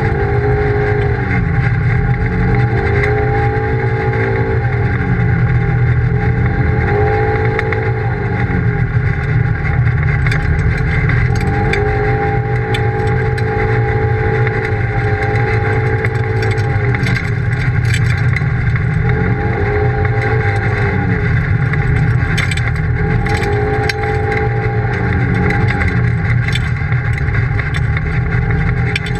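Polaris RZR side-by-side engine running on a gravel trail, its pitch rising and falling every few seconds as the throttle is opened and eased, over a steady rumble of tyres on the road.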